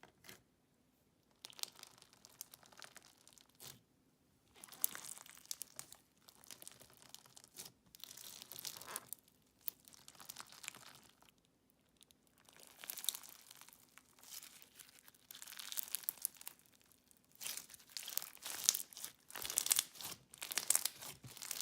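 Crunchy bead-filled slime being squished and stretched by hand, crackling and popping in irregular bursts with short pauses between.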